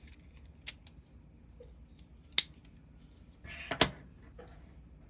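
3D-printed plastic folding utility knife clicking as it is worked: three sharp clicks, the loudest two about two and a half and four seconds in, the last with a short scrape as the knife is set down on the wooden bench.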